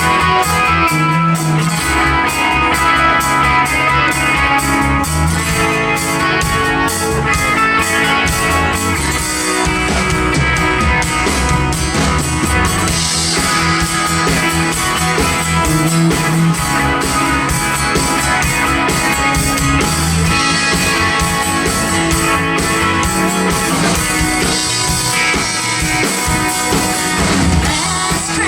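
Live band playing the instrumental opening of a Christmas song on guitars and drum kit, with a steady beat and no singing yet.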